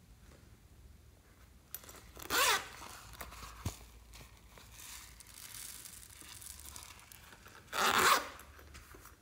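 Zipper of a silicone coin purse drawn open about two seconds in and drawn shut again near the end, each pull a short rasp.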